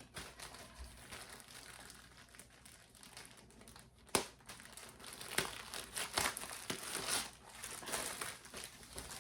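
A bag crinkling as it is handled and filled, in irregular bursts that grow busier in the second half, with one sharp click about four seconds in.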